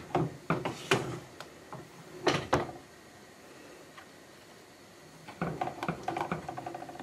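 Wooden spoon stirring a thick curry gravy in a metal saucepan, knocking and scraping against the pan in quick strokes. The stirring stops for a couple of seconds midway, then starts again.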